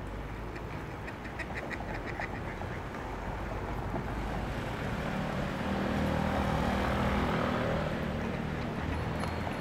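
Mallard ducks quacking, a quick run of quacks in the first couple of seconds, over steady city traffic noise that swells in the middle as a vehicle goes by.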